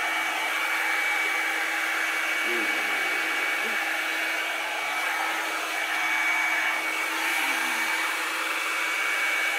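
Revlon One Step hot-air drying brush running steadily while drying hair: an even blowing rush with a constant-pitch whine from its motor.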